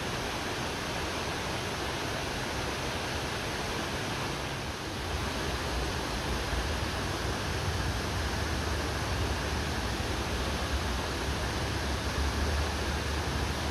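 Rushing mountain stream flowing over boulders and small rapids, a steady hiss of water. About five seconds in, a low rumble grows beneath it.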